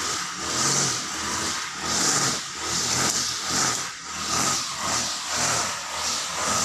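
A soft broom swept over concrete in quick, regular strokes, each a short hiss, about two a second, over a low hum.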